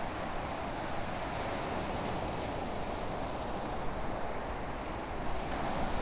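Steady rushing outdoor noise of wind and water, even throughout, with no distinct events; the wading heron itself makes no sound.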